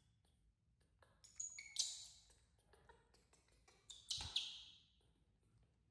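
Baby monkey giving short high-pitched squeals in two bursts about two seconds apart, with light clicks and handling noise between them; a soft thump comes with the second burst.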